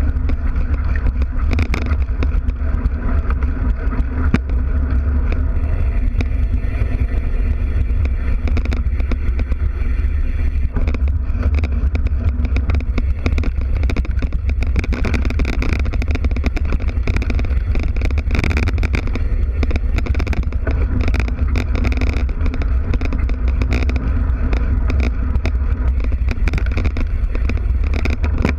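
Mountain bike riding over a sandy dirt track, heard from a camera mounted at the rear wheel: a steady low rumble of tyre and wind noise, with frequent knocks and rattles as the bike goes over bumps.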